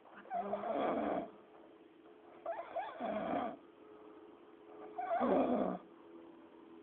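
A man snoring in his sleep: three snores, each about a second long, coming about every two and a half seconds.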